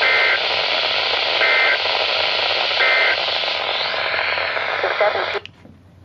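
Weather radio speaker hissing with static, over which three short bursts of paired digital data tones sound about 1.4 seconds apart: the Emergency Alert System end-of-message code. The static cuts off suddenly near the end.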